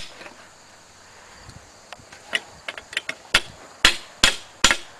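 Hammer blows driving a log dog into a log: starting about two and a half seconds in, a few light taps, then four sharp strikes about half a second apart.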